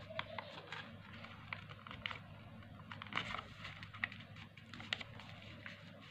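Sheet of paper being folded and pressed flat by hand: irregular crinkles and small sharp clicks as the creases are made, over a low steady hum.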